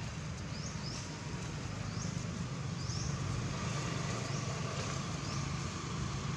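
Steady outdoor background with a low hum like distant traffic, and a short, high, rising chirp repeating about once a second.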